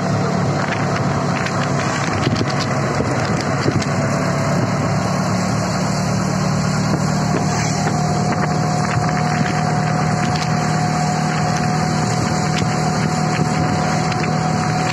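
Three-wheeled auto-rickshaw driving along a road, heard from inside the passenger compartment: a steady motor hum with a faint whine that rises slightly about halfway through, over road and wind noise and a few light rattles.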